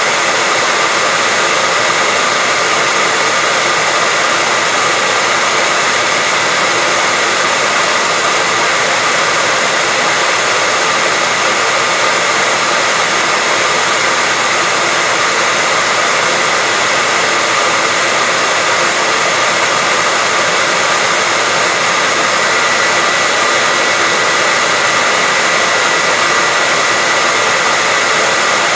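Hair dryer running steadily: an even, unchanging rush of air with a thin, constant whine in it.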